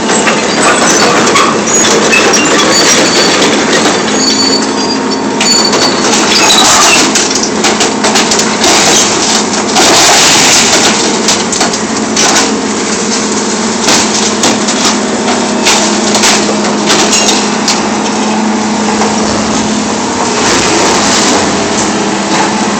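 Hydraulic excavator's orange-peel grapple crushing and tearing scrap sheet metal: a dense clatter of crunches, cracks and metal knocks, loudest about seven and ten seconds in, over the steady drone of the 340LCV excavator's diesel engine and hydraulics.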